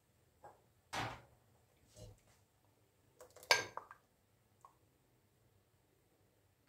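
A handful of short knocks and clatters from kitchen things being handled, spaced about a second apart, with the loudest about three and a half seconds in.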